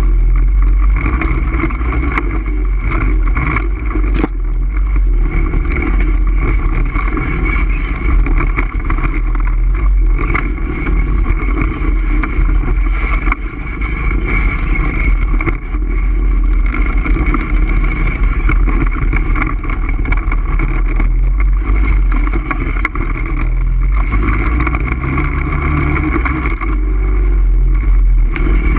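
All-terrain vehicle engine running steadily under way, with a heavy low rumble and occasional knocks, one sharp knock about four seconds in.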